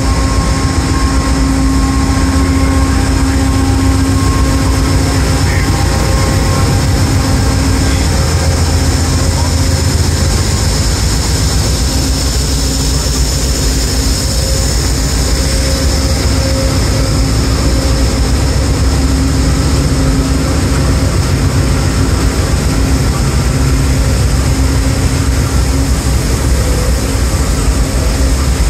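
Two Amtrak GE Genesis diesel-electric locomotives running while standing at the platform, heard up close. Their sound is a steady, loud low drone with a constant hum and a high whine over it.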